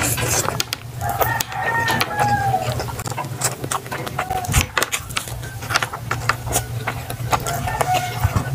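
Close-up eating sounds, with chewing and utensil clicks throughout. A rooster crows in the background, one long crow about a second in, with shorter calls later.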